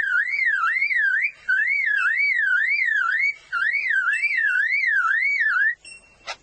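Superb lyrebird mimicking a car alarm: a loud warbling whistle that swings up and down about two to three times a second, in phrases with three brief breaks. It stops shortly before the end, followed by a sharp click.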